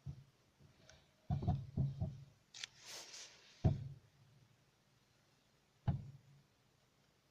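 Moskvich 2141 steering rack knocking: dull clicks at the splines, a quick run of four and then two single knocks a couple of seconds apart, the sign of play in the steering rack. A short rustling hiss comes in between, about three seconds in.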